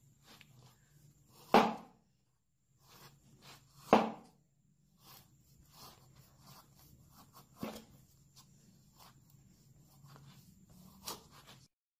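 Restored butcher's knife chopping down through thin wooden sticks on a board: two loud sharp chops, about a second and a half in and at four seconds, then lighter cuts with small cracking ticks and two more sharper chops later. The sound cuts off shortly before the end.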